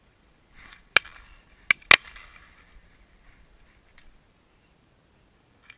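Three sharp cracks: one about a second in, then two close together near two seconds, the last and loudest trailing a short ringing tail. A fainter click follows near four seconds.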